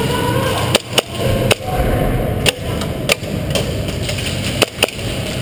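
Airsoft guns firing in a close-quarters game: about seven sharp single cracks, irregularly spaced, over a steady background hiss.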